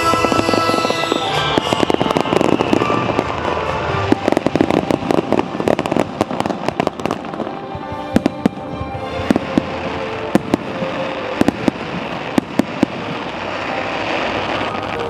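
Fireworks finale: a rapid barrage of aerial shells bursting, many sharp bangs and dense crackling, thickest in the middle, over background music.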